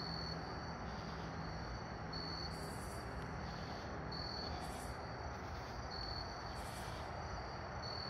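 Night insects calling outdoors: a steady, high pulsing trill, with a higher buzzing call repeating about every two seconds, over a faint low background hum.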